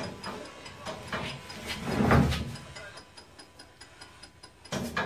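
Ghost-hunting spirit box sweeping through radio stations: a fast, choppy run of static clicks and broken fragments of sound, with a louder burst about two seconds in.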